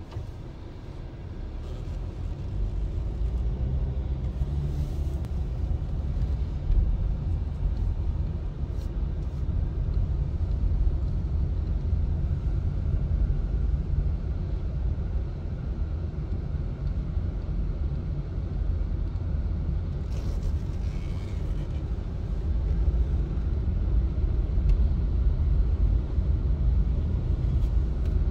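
Steady low rumble of a car's engine and tyres heard from inside the moving car's cabin. It builds over the first couple of seconds and grows a little louder again about three-quarters of the way through.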